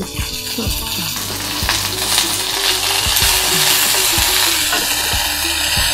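Curry leaves frying in hot oil in a pan, the sizzle swelling about a second in, while a wooden spatula stirs them with light scrapes and knocks against the pan.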